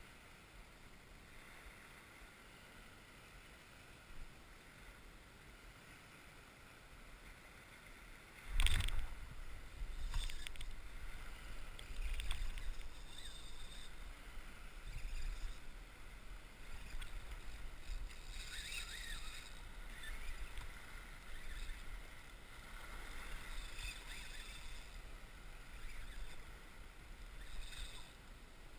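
Water sloshing and wind on the microphone while an angler fights a fish on a bent rod. It starts as a faint hiss, a sharp knock comes about eight and a half seconds in, and after that there is uneven low rumbling with scattered splashy noises.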